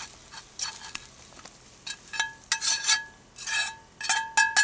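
Metal spatula scraping cooked food out of a cast-iron skillet: a series of short scrapes, with several clinks of metal on the pan that ring briefly in the second half, the loudest near the end.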